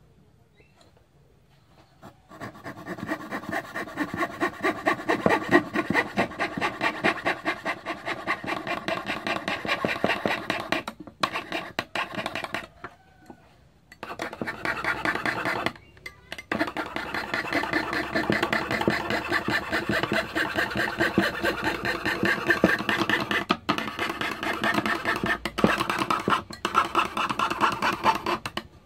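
Hand fretsaw sawing in fast, even strokes. It starts about two seconds in, stops for a second or two about halfway through, then carries on steadily.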